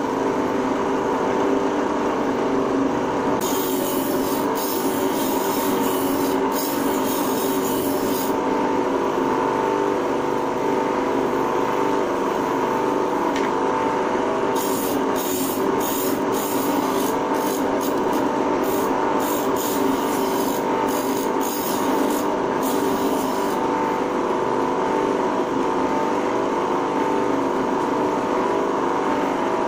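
Small electric grinder running with a steady hum while an electric planer knife is pressed against its grinding wheel to sharpen the edge. The blade grinds in two hissing spells, from about four to eight seconds in and again from about fifteen to twenty-three seconds in.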